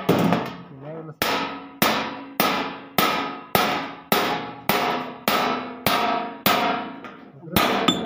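Hand hammer striking a chisel held on a steel sheet, cutting along a line in the sheet metal: evenly spaced blows about two a second, each with a short metallic ring.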